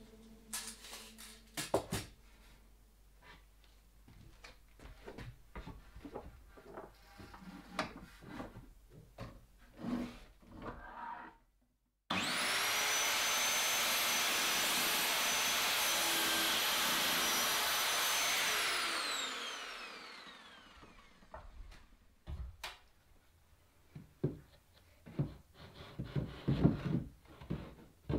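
Light wooden clicks and knocks of small boards being handled, then a sliding mitre saw starts suddenly and runs steadily for about six seconds as it cuts a wooden strip, and then spins down with a falling whine. More wooden knocks follow near the end.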